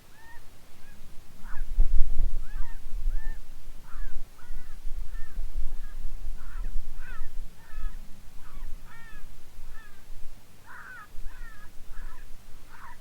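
A flock of birds calling: many short, arching calls, two or three a second, overlapping throughout. A low rumble runs underneath, loudest about two seconds in.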